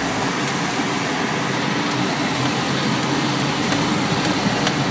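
A 4x4's engine running steadily, heard from inside the cabin as it drives along a muddy dirt track, with tyre and road noise and a few short ticks.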